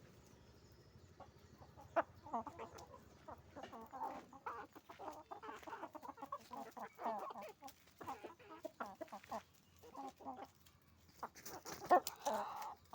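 A flock of chickens clucking, many short overlapping calls from about two seconds in, with a sharp loud squawk near the end.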